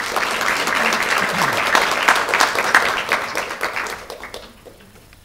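Audience applauding: a dense patter of many hands clapping that dies away about four seconds in.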